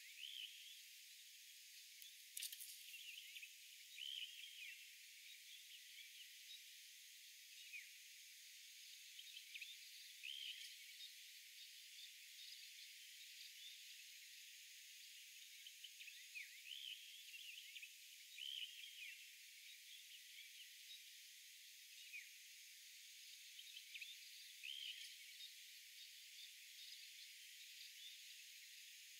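Faint outdoor ambience of birds chirping, short scattered calls over a steady insect hum. There is one sharp click about two seconds in.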